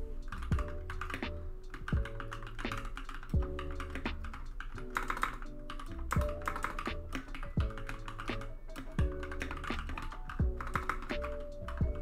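Fast typing on a mechanical keyboard fitted with Akko Very Peri keycaps: a dense run of quick key clicks, over background music with a steady beat.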